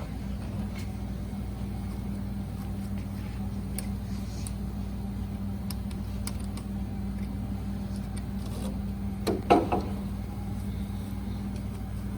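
A steady machine hum, with scattered small clicks of parts being handled and one short, louder clatter about nine and a half seconds in.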